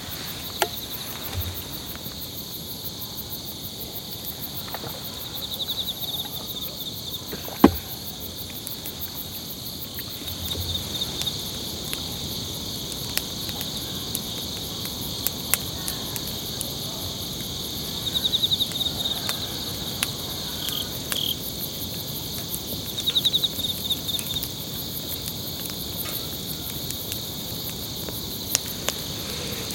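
Night insects chirping steadily in several high, shrill layers, with louder pulsing trills now and then and scattered small clicks; one sharp click stands out about eight seconds in.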